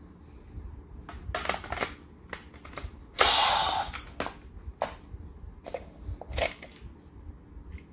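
Hard plastic clicks and clacks from a Bandai DX Shotriser toy gun as it is handled and its parts are moved. A little over three seconds in comes a louder rough noise lasting under a second.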